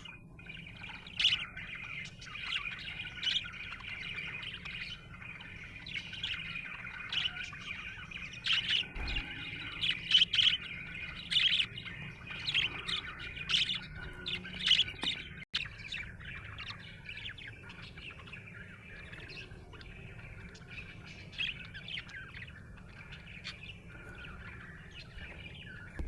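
Budgerigar chirping and warbling, the chatter of a happy budgie: a steady run of chirps with sharp, louder calls scattered through the first half, growing softer toward the end.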